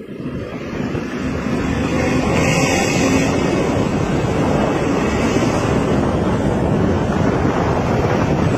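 Engine running through a loud aftermarket 'ngorok' (snoring-style) exhaust, a dense rushing rumble that builds over the first second or so and then holds steady.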